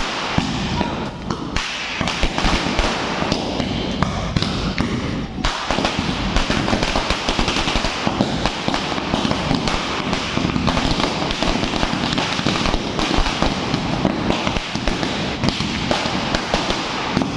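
A long chain of firecrackers, a 10,000-cracker string, going off in rapid continuous succession: a dense, unbroken rattle of small bangs.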